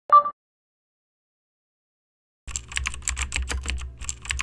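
Computer keyboard typing sound effect: a quick run of key clicks, about six or seven a second, over a low hum, starting a little past halfway. A short tonal blip sounds at the very start.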